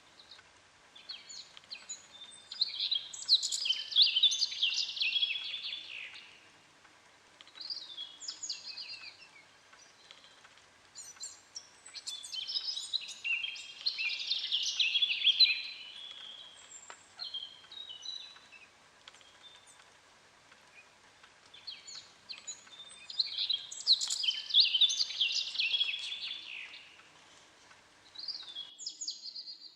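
Songbird singing: long, rapid warbling phrases roughly every ten seconds, three main bouts, with shorter chirps between them.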